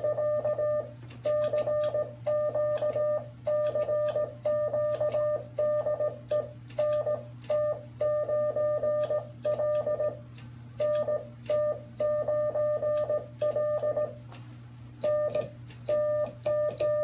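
Morse code sent by hand on a telegraph key: a steady mid-pitched electronic beep switching on and off in dots and dashes, with a few short pauses between groups. The key's contacts click along with it.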